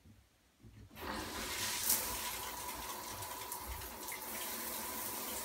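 Shower turned on: water spraying from a shower head through a newly installed inline shower filter, a steady rush that starts about a second in.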